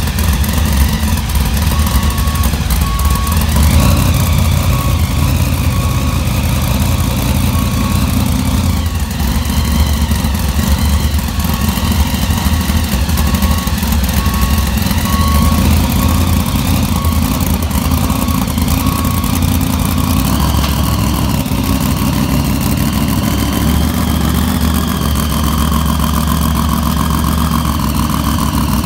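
Grave Digger monster truck's supercharged V8 running at a loud, lumpy idle with occasional blips of throttle while it manoeuvres and backs up the ramps into its trailer. A regular high beep, like a reversing alarm, repeats through the first two-thirds and stops around twenty seconds in.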